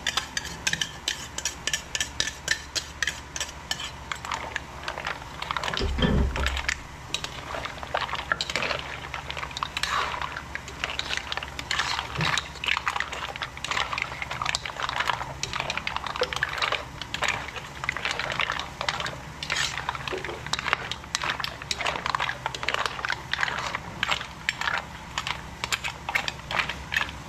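A utensil stirring a pot of seafood in coconut milk, clinking and scraping against the pot again and again at an uneven pace. A short low thump comes about six seconds in.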